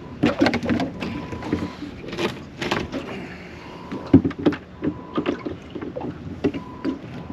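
Irregular knocks, clatters and scrapes of a barramundi being handled and measured on the deck of a small boat, with a louder thump about four seconds in.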